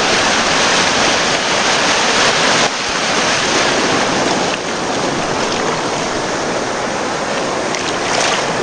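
Surf washing in at the water's edge: a steady, close rush of breaking waves and foam, which eases slightly about two and a half seconds in.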